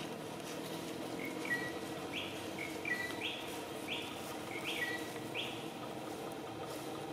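A bird calling: a run of short, sharp high notes, repeating about every second, starting about a second in and stopping near two-thirds of the way through, over a faint steady background hum.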